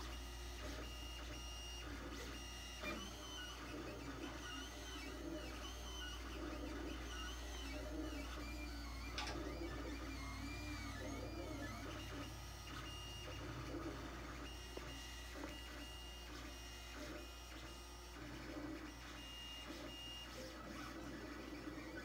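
Lulzbot TAZ 3 3D printer running, its stepper motors giving short whining tones that rise and fall in pitch as the axes move. A steady low hum sits underneath, with a sharp click about nine seconds in.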